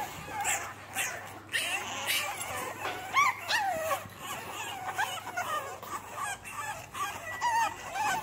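French Bulldog puppies whining and yipping: many short, high calls that rise and fall, overlapping and coming in quick succession.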